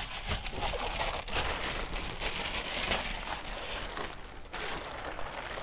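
Crinkling and rustling of packaging as boxed car parts are handled, with a few light knocks among it.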